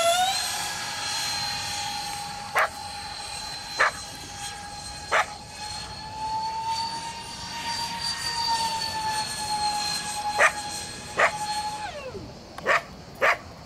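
Twin electric ducted fans of a Freewing Su-35S RC jet whining in flight: a steady high tone that swells a little, then drops in pitch near the end. About seven short, sharp sounds cut in over it.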